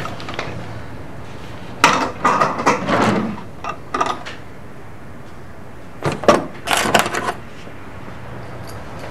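Rummaging through a wooden drawer: objects clattering and knocking against the wood in bursts, about two seconds in and again about six seconds in.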